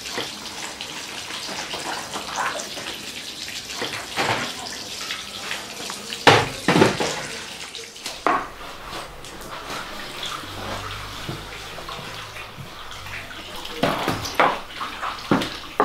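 Wet scrubbing and rubbing strokes on a wooden furniture piece: irregular swishes, a few sharper ones in the middle and near the end, with a low hum coming in partway through.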